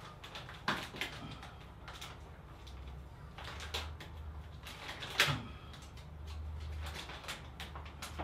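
A few light knocks and clicks, the loudest about five seconds in, over a low hum that runs from about three seconds in to near the end.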